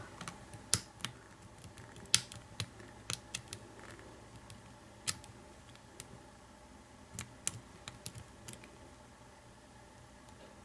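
Irregular sharp metallic clicks of a hook pick working the pin stack of an American 700 Series padlock held under heavy turning tension with a pry bar. They come in uneven clusters and thin out near the end.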